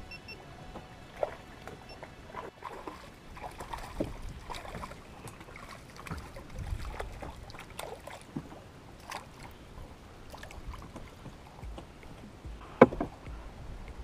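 Small waves from a strong wind slapping against the hull of a small fishing boat, with scattered knocks and clicks and one sharp, loud knock near the end.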